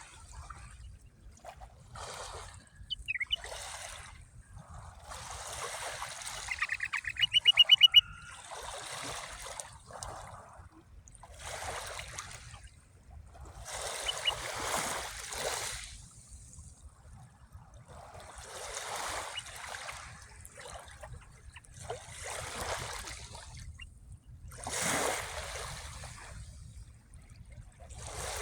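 Small sea waves washing in and draining back, one swell every two to three seconds. About seven seconds in, a bird gives a loud, rapid trill, after a brief chirp a few seconds earlier.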